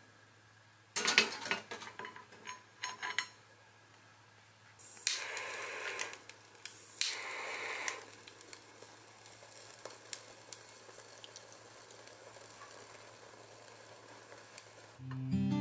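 Metal clinks and clatter as a griddle plate is set onto the wire trivet of a small steel camp stove, followed by a few seconds of louder rustling noise. After that, the solid-fuel tablets burn faintly and steadily under the plate, with a few small ticks.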